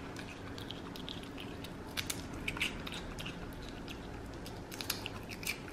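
Black-capped capuchin monkey biting and chewing popped potato chips: a scatter of small, crisp crunches, with a few louder ones about two seconds in and near the end.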